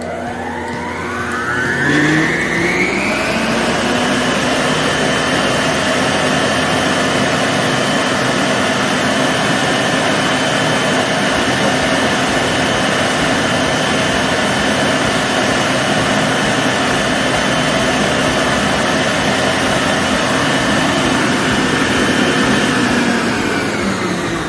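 Electrolux EKM3407R stand mixer's motor running at its top speed (speed 6), loud, at about 83–84 dB on a meter 30 cm away. Its whine rises over the first two to three seconds as it spins up, holds steady, then falls away near the end as it is switched off.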